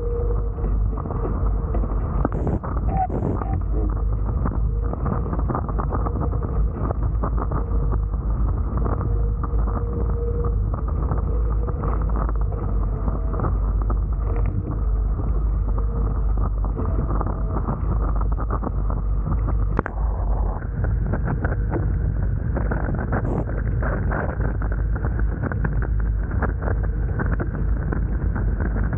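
Steady wind buffeting the camera microphone, mixed with water rushing past the hulls of a Hobie Tiger F18 catamaran sailing fast.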